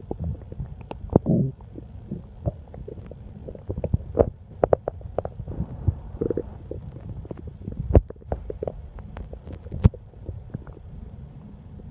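A hungry, empty human stomach growling: a run of short pops and bubbling gurgles, with a longer gurgle a little over a second in, another near the middle, and a few sharp clicks later on.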